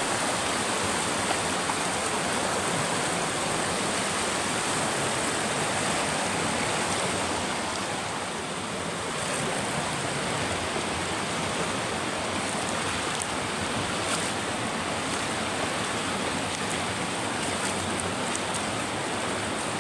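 Shallow rocky river flowing over and around stones: a steady rushing of water.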